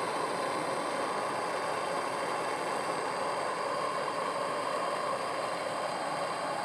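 Handheld gas torch flame hissing steadily as it heats a flux-coated aluminum solder rod against a hole in an aluminum coil.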